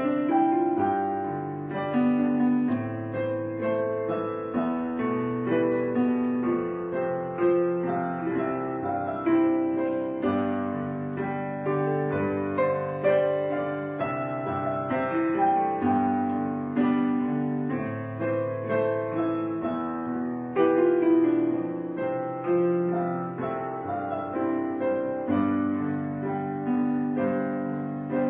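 Background piano music: a steady, gentle flow of struck notes that ring and fade.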